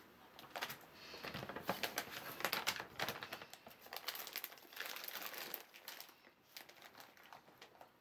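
Plastic packaging of dry cat food crinkling and crackling as it is handled. The crinkling is dense for the first several seconds, then thins to scattered crackles near the end.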